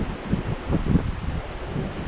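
Wind buffeting the microphone in uneven low gusts, over a steady rushing hiss.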